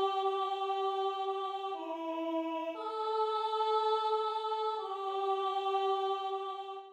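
Four-part choral harmony of an alto practice track, played as steady held chords without vibrato. The chord changes three times and stops abruptly near the end.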